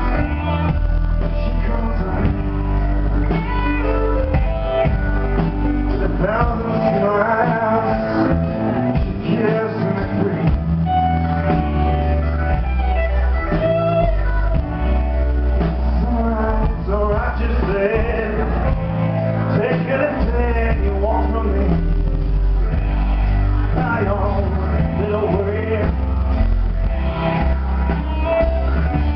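Live rock band playing an instrumental passage: electric guitar lead lines with bent, wavering notes over bass guitar and drum kit.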